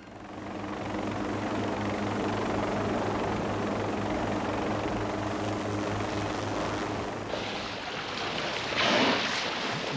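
Helicopter engine and rotor running steadily, a low pulsing drone over a rushing noise. It fades in over the first second, and a brief louder rush of hiss comes near the end.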